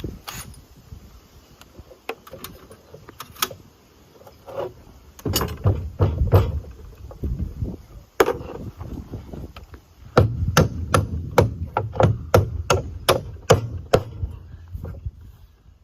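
Hammer blows: a few scattered strikes at first, then a steady run of about three blows a second in the second half.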